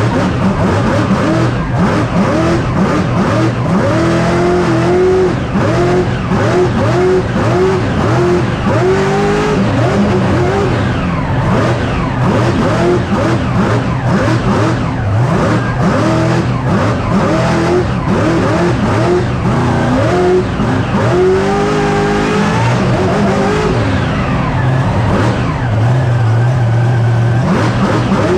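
Mega truck's engine run hard through a mud bog, heard from inside the cab: a loud, continuous engine sound whose revs surge up and down over and over in quick succession, settling steadier near the end.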